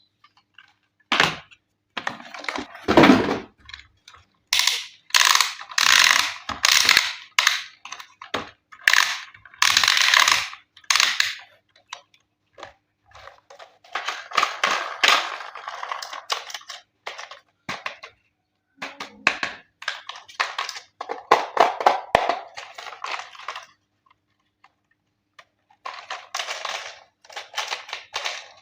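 Hands handling packaging and plastic toy parts: irregular bursts of rustling with sharp clicks and knocks, in clusters separated by short pauses.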